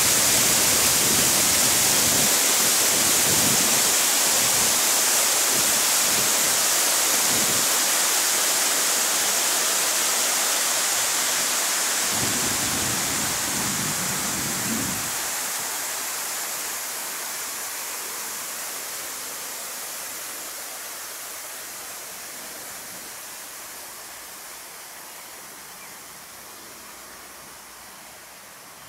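Fountain water splashing, a steady rushing noise that fades away gradually over the whole stretch.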